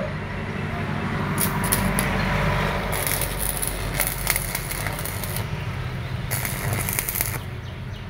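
Stick (arc) welding: the arc crackles and sizzles as a coated electrode is run on a steel bar. The crackle comes in spells, strongest from about three seconds in and again near the end, over a steady low hum.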